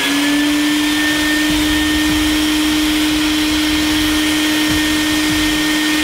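Wet/dry shop vacuum running at full speed, its motor holding a steady pitch over a rush of air, as it sucks the air out of a plastic bag sealed around a microwave.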